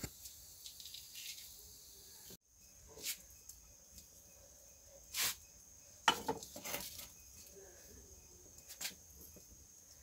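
Faint, scattered crackles and pops from cumin seeds dry-roasting in a hot cast-iron pan over a wood fire, with a steady high insect chirring behind.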